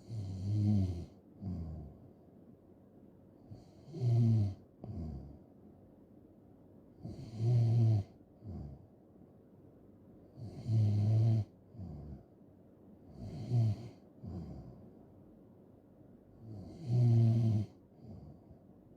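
A person snoring steadily in sleep: six loud, low snores about three seconds apart, each followed by a short, softer breath.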